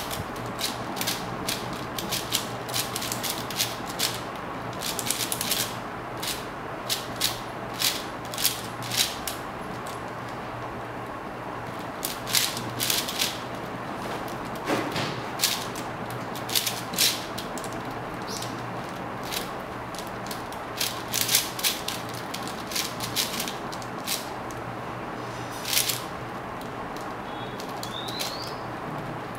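A 4x4 speedcube being turned fast by hand: quick irregular runs of plastic clicking and clacking as its layers turn, broken by short pauses, over a steady low hum.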